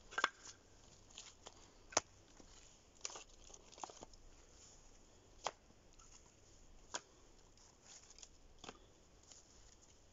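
Firewood being handled: scattered sharp knocks and cracks of wood, about six louder ones a second or two apart, with faint rustling between.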